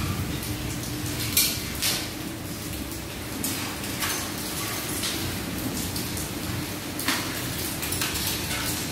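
Irregular sharp clicks and knocks, one every second or two, over a steady low hum.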